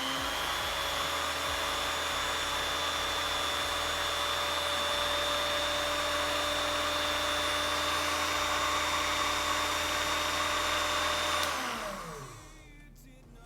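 Ilco Mini Mite 008A key duplicating machine's motor and cutter running at a steady speed with a high whine, working again after being torn down and rebuilt. About eleven and a half seconds in it is switched off and spins down, its pitch falling over about a second.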